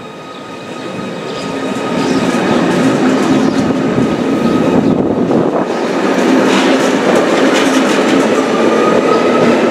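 ZSSK class 671 double-deck electric multiple unit pulling out past the platform. Its rumble and steady electric drive whine grow louder over the first two seconds, then hold, with a few clicks from the wheels over the track.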